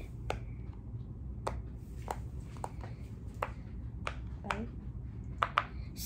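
Silicone pop-it fidget toy bubbles being pressed one at a time: about a dozen sharp little pops at an uneven pace.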